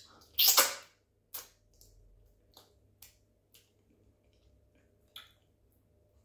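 Close-up hand-eating sounds: a loud slurp about half a second in as fish in owo soup goes into the mouth, then a few short, scattered mouth clicks and smacks while chewing.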